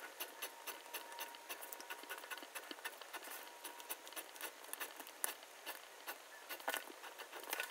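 Faint, irregular ticks and scratches of a pencil ruling lines along a plastic ruler on paper, with the ruler being shifted and set down between strokes.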